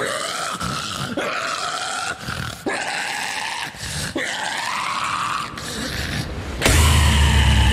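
Deathcore harsh vocals, guttural growls and squeals in several phrases over sparse backing with the bass and drums dropped out. Near the end the full band crashes back in with heavy low guitars and drums for a breakdown.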